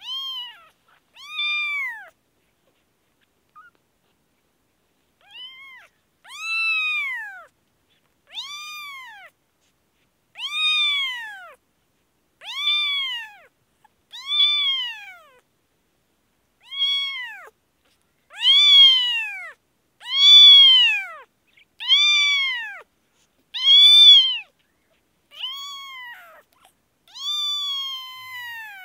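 Newborn kitten meowing over and over, a high cry every second or two, each rising then falling in pitch, with a short pause near the start and the loudest cries in the middle.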